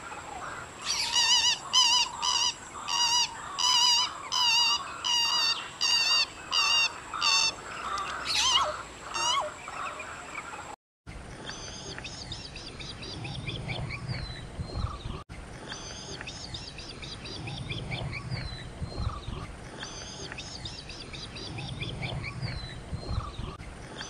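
Pheasant-tailed jacana calling: about ten loud nasal calls in a regular series, each wavering in pitch. After a short break, a bronze-winged jacana gives fainter, repeated falling whistled calls.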